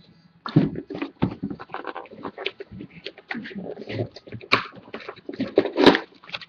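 Plastic wrap crinkling and cardboard rustling as a sealed box of Exquisite football cards is handled and opened, with irregular clicks and taps and a couple of sharper snaps near the end.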